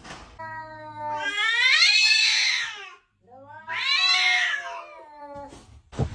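Cat yowling: two long, drawn-out yowls with a short break between, each rising in pitch and then falling away. These are the threatening yowls that cats give when squaring off to fight.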